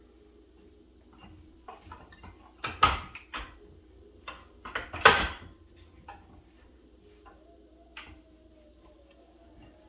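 Metal clanks, knocks and rattling as a strut's coil spring is handled and set into a strut spring compressor, with two loud clanks about three and five seconds in and lighter clicks between, over a faint steady hum.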